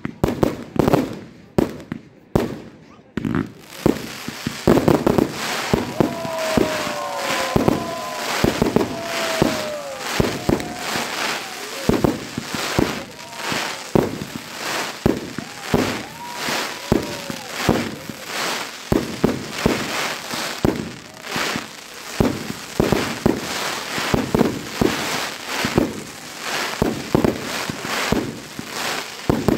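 Fireworks display: a dense, continuous run of aerial shell launches and bursts, several bangs a second. Twice, about a quarter and just past half way through, whistling tones slide in pitch over the bangs.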